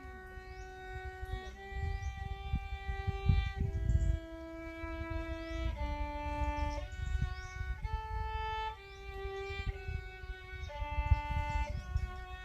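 Solo violin playing a slow melody of long held notes, each about a second, with low rumbling thumps underneath.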